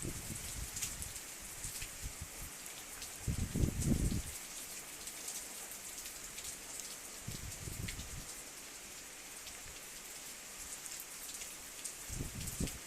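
Heavy rain falling, a steady hiss dotted with the ticks of individual drops, broken by three brief low rumbles.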